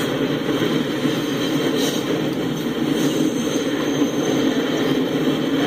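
Intermodal freight cars rolling across an overhead steel girder bridge: a steady rumble of wheels on rail. A couple of faint, brief high squeaks come about two and three seconds in.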